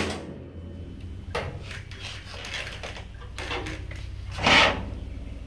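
Cordless drill driving a sheet-metal screw in one short burst about four and a half seconds in, amid light knocks and rattles of steel panels and screws being handled; a low steady hum underneath.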